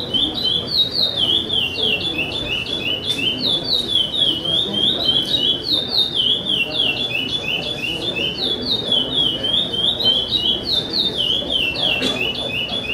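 Caged pássaro-preto (chopi blackbird) singing in the charrua song style: a long, loud run of clear, downward-slurred whistles, several a second, repeated phrase after phrase with only brief breaks.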